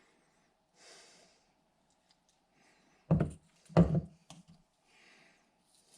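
Two solid knocks about three seconds in, less than a second apart, with a soft rustle before them and a few light clicks after: objects being handled and set down on a workbench.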